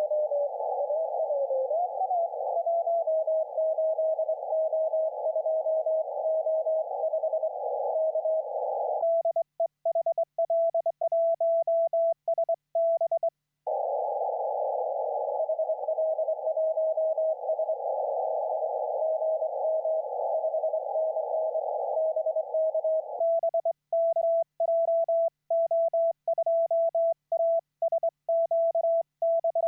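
Morse code (CW) on a Kenwood TS-890S transceiver. First the other station's keyed tone comes through a narrow band of receiver hiss, with a brief wavering tone near the start. About a third of the way in, and again for the last quarter, the hiss drops out and clean beeps of the operator's own sending on a bug key take over as sidetone.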